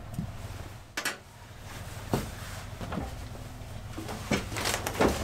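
A handful of separate knocks and clunks of objects being handled, about six in five seconds, over a steady low hum.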